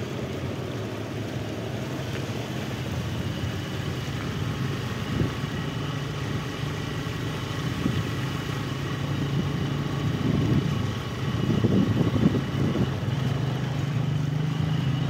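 Motorcycle engine running steadily while riding along a wet, flooded road, under a rushing noise that gets louder about eleven seconds in.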